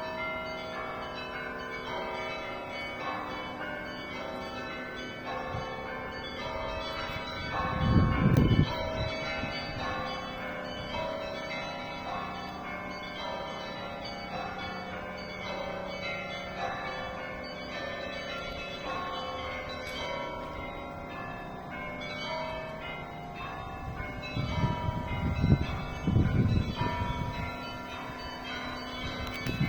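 Russian Orthodox church bells ringing: many bells of different pitches struck in quick overlapping patterns, with no break. There are a few louder low rumbles about eight seconds in and again near the end.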